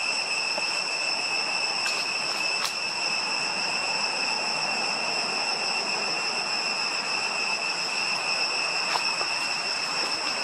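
Steady insect chorus in tropical forest: a continuous high-pitched drone in several bands over a fainter hiss, with a few faint ticks.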